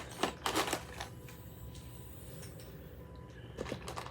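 Small plastic toy pieces being handled, with clicks and light clattering. There is a short burst of rattling in the first second and a few sharper clicks near the end.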